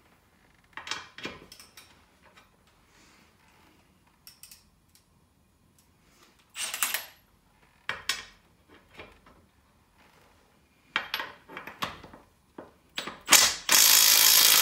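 Scattered clicks and clanks of a socket and adapter being handled and fitted onto a wheel lug. Near the end, the loudest sound: a Milwaukee M12 Fuel 3/8-inch stubby impact wrench on speed 3 starts hammering, breaking loose a lug torqued to about 120 foot-pounds and taking it off without trouble.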